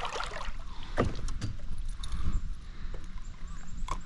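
Handling noise in a fishing kayak: a few sharp clicks and knocks over a steady low rumble.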